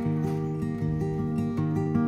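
Background music led by a plucked acoustic guitar playing a gentle melody.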